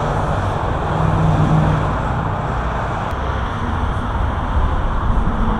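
Interstate traffic passing steadily close by, a continuous rush with a low rumble underneath.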